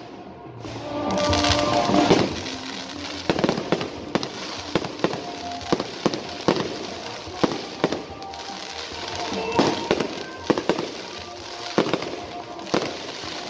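Fireworks going off: a rush of hissing noise swells about a second in, then a rapid run of sharp bangs and pops from glittering crackle shells bursting overhead.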